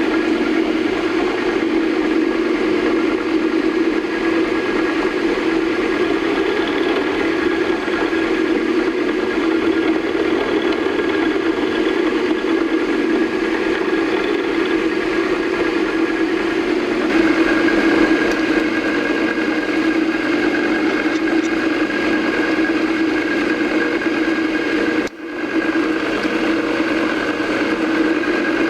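Milling machine running steadily as the end mill takes light cuts, milling a flat on a round part: a constant hum, with a higher whine joining a little over halfway through and a brief drop in level near the end.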